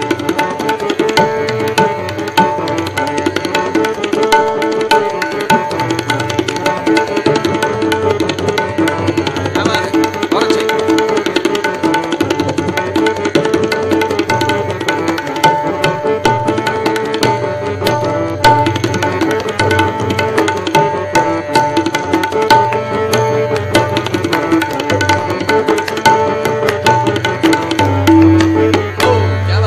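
Tabla playing a fast (drut) teentaal rhythm in Hindustani classical music: rapid, dense strokes on the right-hand drum with deep strokes on the bass drum. Sustained harmonium notes are held beneath.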